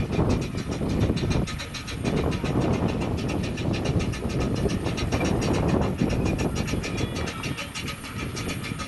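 Miniature-gauge steam train running, with a rapid, regular beat over a continuous low rumble.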